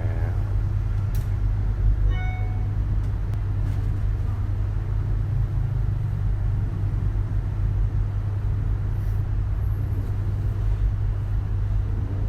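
A steady low rumble, with a short ringing tone about two seconds in.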